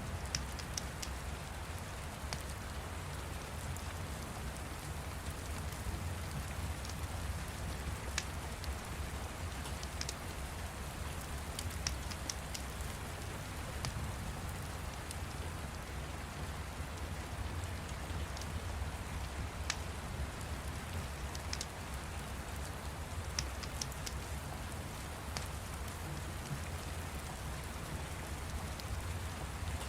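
Steady rain with scattered sharp crackles from a fire, a crackle every second or two.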